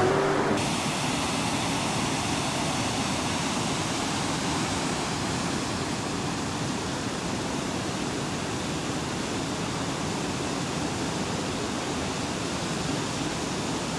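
Steady rush of river water running over shallow rapids.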